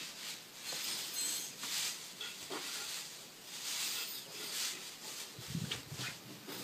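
A rabbit and a cat scuffling on a bed: short rustling bursts from paws on the bedsheet, with a few soft thumps about five and a half seconds in.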